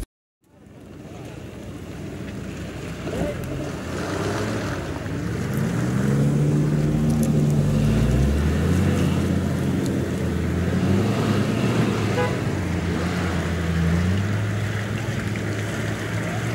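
Wind rumbling on the microphone over running vehicle engines, with an engine's pitch rising and falling for several seconds in the middle; the sound fades in from silence just after the start.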